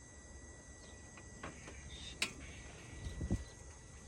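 Quiet background with a steady high-pitched insect-like whine over a low rumble, broken by a few short, light clicks and taps.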